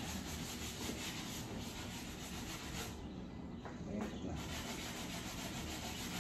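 Wood being sanded by hand with a sanding block, rubbed back and forth over a short wooden block in quick repeated strokes. The strokes pause briefly a little past halfway, with a light knock, then resume.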